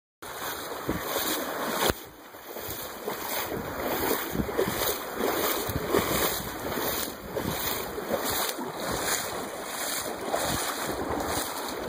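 Footsteps splashing and sloshing through shallow, muddy river water while wading, in a steady rhythm, over the rush of the water and wind buffeting the microphone.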